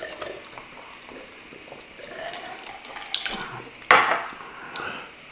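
Cutlery scraping and clinking on a plate during a meal, with scattered small clicks. About four seconds in, one loud knock as a drinking glass is set down on a glass tabletop.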